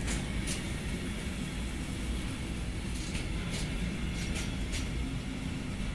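Intermodal freight wagons carrying lorry trailers rolling past on the rails: a steady low rumble of wheels on track. Several short, sharp high-pitched ticks come now and then, most of them bunched in the second half.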